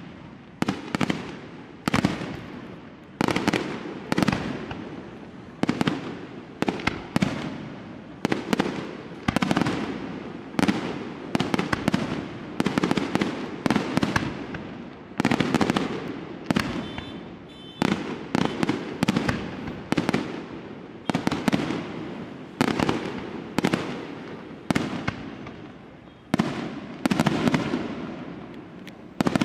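Tufano Fireworks aerial shells bursting in quick succession, a sharp bang about once a second, sometimes two close together, each followed by a rolling echo.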